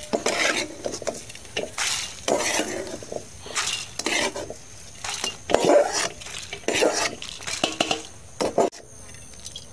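Steel ladle scraping fried coriander seeds out of a steel wok and tipping them into a steel bowl, a run of scrapes and clinks of steel on steel. The strokes stop about a second before the end.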